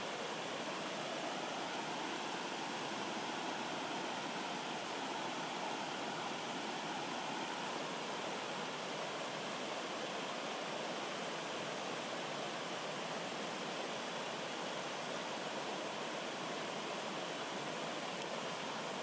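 Steady rush and babble of a rocky stream flowing in small cascades over boulders, an even, unbroken water sound.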